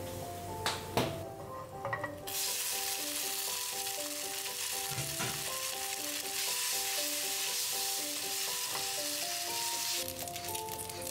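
Hot oil with garlic and crushed red pepper sizzling in a frying pan, the sizzle starting suddenly about two seconds in as the cooked pasta goes in and stopping near the end. Gentle background music plays throughout, and two short knocks come in the first second.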